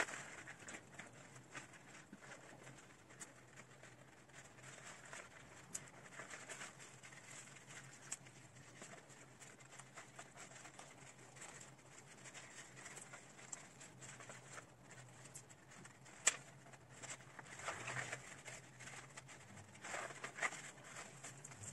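Faint pattering and scattered small clicks of old potting soil being crumbled and shaken off an aspidistra's root ball during repotting.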